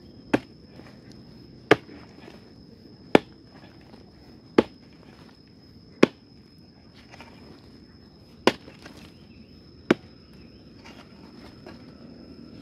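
A digging tool striking the hard-packed earth of a termite mound: seven sharp, separate blows, roughly one every one and a half seconds, with a longer pause in the middle. A steady high insect trill runs behind.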